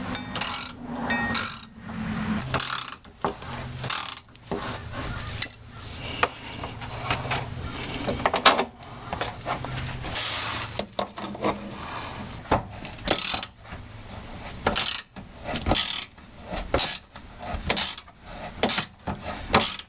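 Ratcheting wrench clicking through repeated back-and-forth strokes, run down the J-bolt nuts of a Jeep Cherokee fuel tank's straps to tighten them. The fast, fine clicking comes in runs, with short sharp knocks of the tool between strokes.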